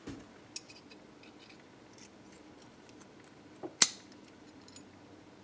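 Small metal ring and folded mount plate clicking and clinking as they are handled and fitted together by hand: scattered light ticks, then one sharp metallic click about two-thirds of the way through.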